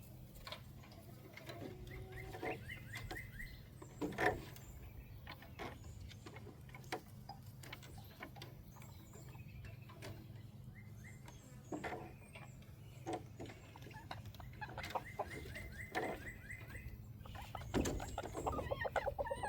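Chickens clucking now and then, with scattered knocks and taps from handling the wooden shutter being repaired, over a steady low background hum.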